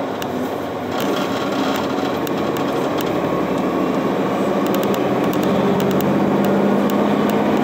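City bus engine and road noise heard from inside the cabin as the bus drives along, growing louder through the second half as it picks up speed, with occasional faint clicks.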